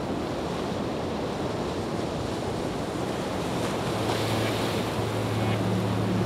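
Steady rush of ocean surf. About two-thirds of the way through, a low sustained tone comes in as music begins.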